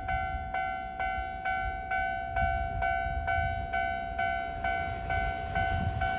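Japanese level-crossing warning bell clanging steadily at about two strikes a second, over the low rumble of a train on the line.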